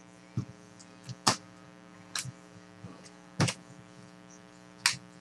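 Trading cards being handled and set down: about six short, sharp card snaps and taps at irregular intervals, over a steady electrical hum.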